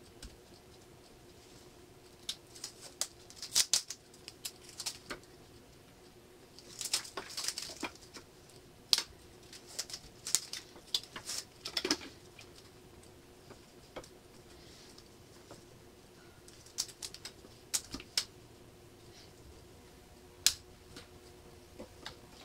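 Hands pulling a compound-cut wooden block apart: the tape and paper pattern crackle and the loose wooden waste pieces click and tap in irregular bursts. A faint steady hum runs underneath.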